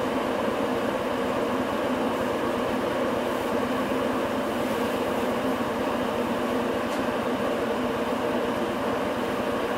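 Cabin noise aboard a Hino Rainbow non-step city bus: a steady engine hum with road noise, holding the same pitch throughout.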